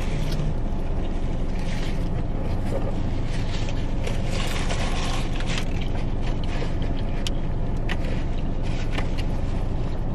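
Steady low hum of a car running, heard inside the cabin, with a few faint clicks over it.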